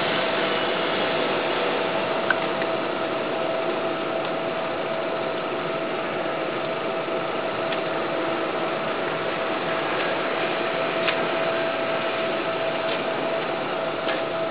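Electric air blower running steadily: a constant motor whine over a rush of air, the forced draught for a charcoal-fired kiln. A few faint ticks sound over it.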